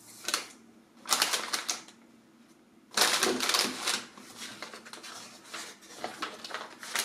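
Plastic bags of Lego bricks crinkling, with the loose bricks inside clicking and rattling as they are handled, and the paper instruction booklet rustling as its pages are flipped. The sound comes in several bursts, the loudest about three seconds in.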